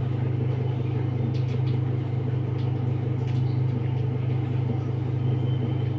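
A steady low mechanical hum, unchanging in level, with a few faint clicks on top.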